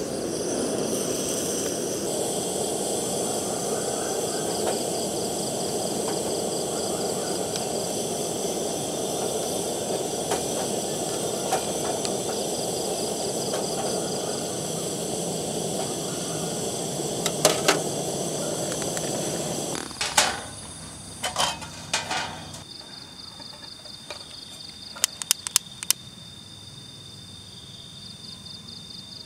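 Portable gas stove burner running with a steady roar that cuts off suddenly about two-thirds of the way through. High-pitched insects trill throughout, and a few sharp clicks follow once the burner is off.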